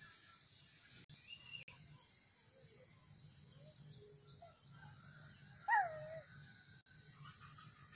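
Outdoor ambience: a steady high hiss with scattered faint bird chirps, and one louder, short falling call about two-thirds of the way in.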